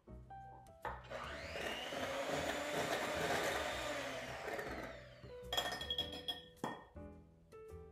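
Electric hand mixer running in a bowl of batter for about four seconds, its pitch rising and then falling, before it stops. A few clinks follow as a metal bowl knocks against the mixing bowl.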